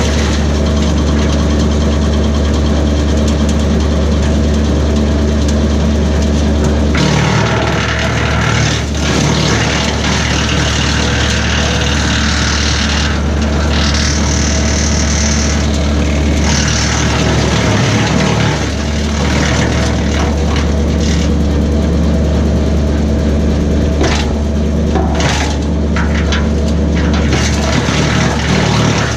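BECO 4-inch PTO wood chipper driven by a Kubota B2601 compact tractor's diesel engine, running steadily; from about seven seconds in, branches being fed through add a loud crackling, grinding noise that comes and goes.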